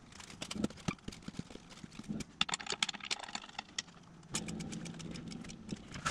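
Hands pressing and rubbing freshly glued sandpaper onto a cast-iron disc sander's platen and handling the machine's metal guard: scattered taps, clicks and knocks with a stretch of rubbing in the middle. A low steady hum comes in about four seconds in.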